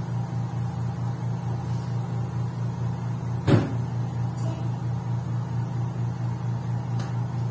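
A front-loading washing machine's door is pulled open with a single loud clunk about halfway through, over a steady, low, evenly pulsing hum. A lighter click follows near the end.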